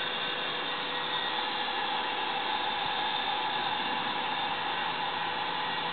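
Steady hiss of escaping steam from a Gresley O1 2-8-0 steam locomotive standing in steam, with no exhaust beat.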